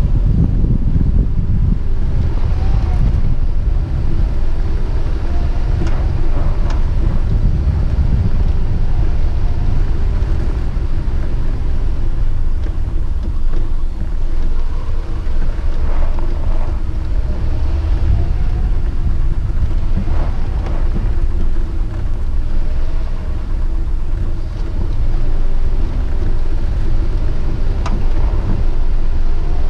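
A steady low rumble with a constant hum, like a vehicle running, with a few faint clicks.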